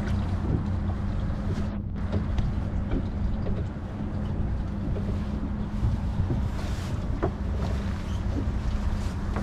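Boat's outboard motor running steadily at idle, a low even hum, with wind noise on the microphone.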